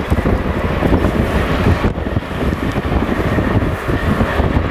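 Class 232 "Ludmilla" diesel locomotive running under load as it slowly hauls a heavy freight train: a loud, steady, deep engine rumble.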